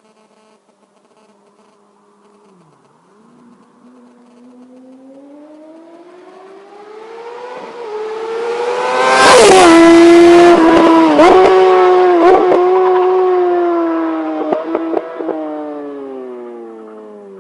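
A high-revving motorcycle passing at speed: its engine note climbs as it approaches, drops sharply in pitch as it goes by about nine seconds in, then dips at several quick gear changes with sharp pops before fading away.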